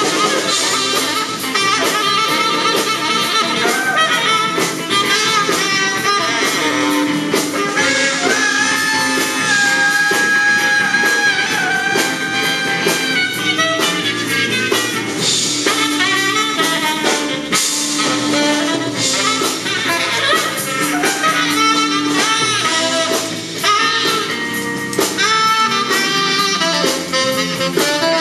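A small live band playing: a saxophone leads with held, wavering melody notes over electric guitar accompaniment.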